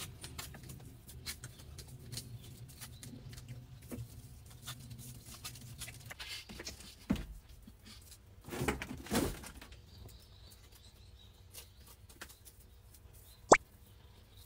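Persimmons being peeled by hand with small peelers: faint repeated scraping and ticking, with a few louder rustles near the middle and one sharp tick near the end.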